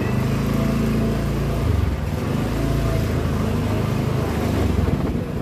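A motorcycle engine running at low, steady revs close by, fading out near the end.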